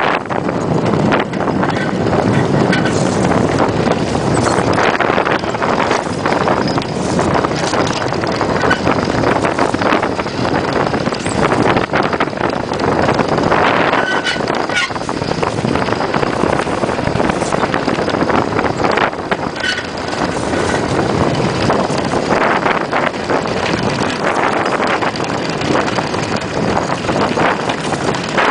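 Iceboat runners hissing and scraping over rough ice at speed, with many short crackles, under heavy wind buffeting the microphone.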